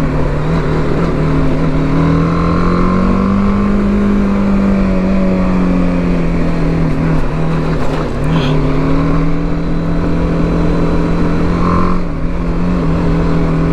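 BMW G310GS motorcycle's 313 cc single-cylinder engine running under way at steady moderate revs. The pitch rises a little and eases off, with a short dip about eight seconds in.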